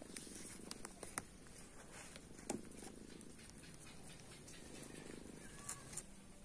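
A cat purring steadily while being stroked, with a few sharp clicks over it; the loudest click comes about two and a half seconds in.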